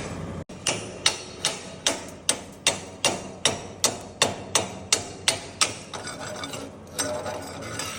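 Hammer striking metal in a steady run of about fourteen sharp blows, roughly two or three a second, then a pause and one more blow near the end.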